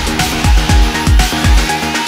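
Electronic background music with a heavy kick drum that drops in pitch on each beat, about two beats a second.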